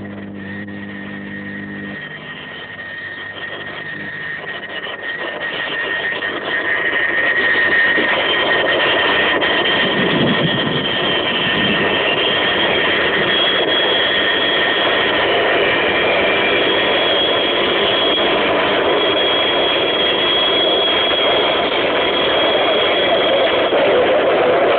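A large crowd cheering and calling out together, swelling over the first several seconds and then holding at a steady roar.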